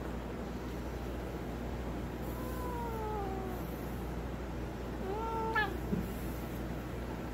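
A cat meowing twice: a longer meow falling in pitch about two and a half seconds in, then a shorter one about five seconds in that holds its pitch and ends with a sharp upward flick.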